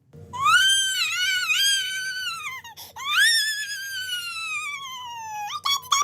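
A baby crying in two long, very high-pitched wails, each sliding down in pitch, then short rising yelps near the end.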